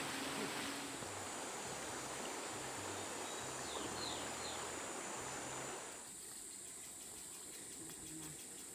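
Amazon rainforest ambience: a steady high insect drone over a rushing, stream-like noise, with a few short falling chirps about four seconds in. About six seconds in the rushing noise drops away suddenly, leaving the insects pulsing more quietly.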